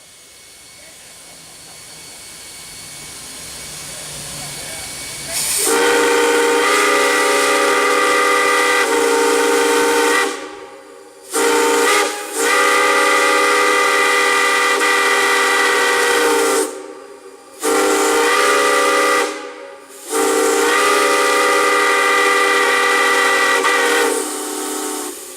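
Steam whistle blown in five blasts: a long one, a quick short toot, then three more long ones, each starting with a slight upward slide in pitch. Before the first blast, steam hisses and grows steadily louder for a few seconds.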